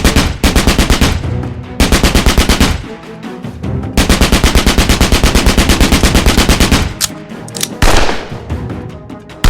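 Fully automatic fire from a German WWII automatic weapon, at about ten shots a second: a short burst at the start, another about two seconds in, then a long burst of about three seconds, followed by a few single sharp reports near the end. Background music runs underneath.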